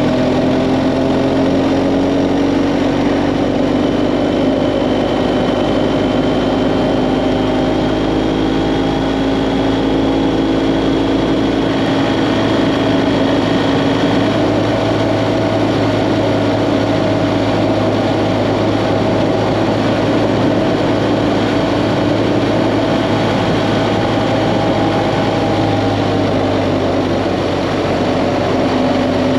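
BMW GS Adventure motorcycle engine running at a steady cruise, its pitch rising and falling a little, with steady wind and road noise.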